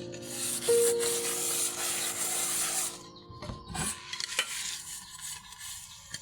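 Scrubbing on a bamboo floor: a rasping, rubbing noise for about three seconds, then quieter with a few light knocks. Soft acoustic guitar notes sound underneath at first.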